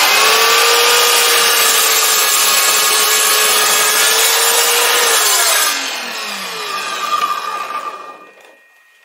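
Electric miter saw switched on and running at full speed while cutting through wood. About six seconds in the trigger is released: the motor's whine falls in pitch and the blade coasts down to a stop.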